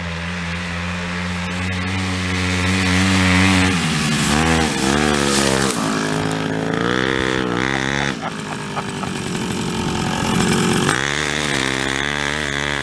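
Chrysler Sno-Runner's small two-stroke engine running steady and getting louder as the machine comes closer. From about four seconds in it is revved up and down repeatedly as the rider drives through the snow.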